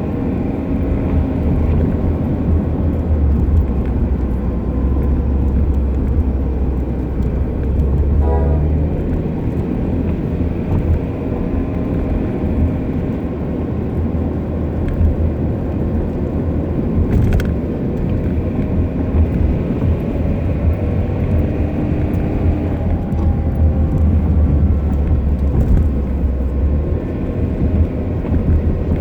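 Passenger car driving, with steady road and drivetrain rumble and a whine that drifts slightly up and down with speed. It is the sign of wear: the owner identifies a lower 'ween' whine as the differential gears and a higher 'kiin' whine as a hub bearing.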